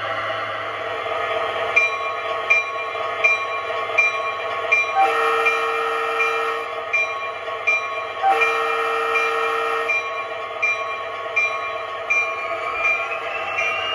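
MTH RailKing SD-45 model diesel locomotive's onboard sound system: steady diesel engine sound, with two long horn blasts near the middle, the signal for a train starting forward. A regular click comes about every two-thirds of a second, and the engine sound rises in pitch near the end.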